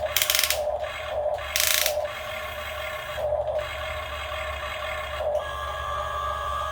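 Small electric gear motors of an RC model excavator grinding in short, repeated bursts, two of them loud and hissing in the first two seconds. About five seconds in, the bursts give way to a steady whine.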